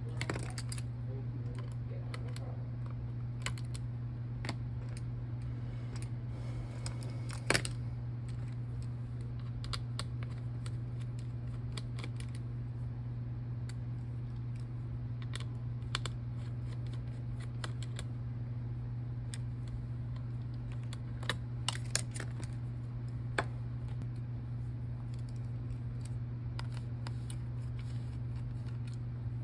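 Scattered small clicks and taps of a precision screwdriver and tiny screws against the aluminium laptop chassis and logic board during disassembly, with one sharper click about a third of the way in and a few more close together near the end. A steady low hum sits underneath.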